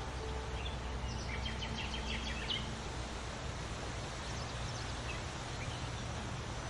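Songbirds chirping, a quick run of short high notes about one to two and a half seconds in, over a steady low outdoor rumble and hiss.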